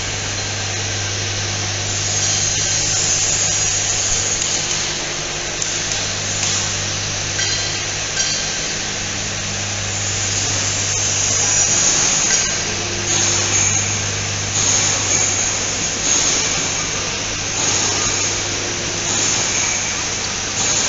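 Factory machinery running: a steady low electrical hum under a high-pitched whirring hiss that swells and fades every second or two, with a few sharp clicks.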